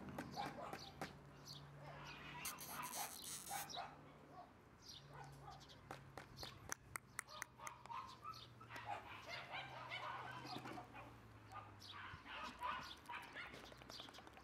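A month-old Shiba Inu puppy's soft whimpers and small yips, short calls scattered through, over a faint low steady hum.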